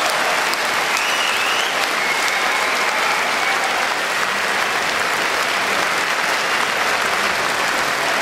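Arena crowd cheering and applauding steadily.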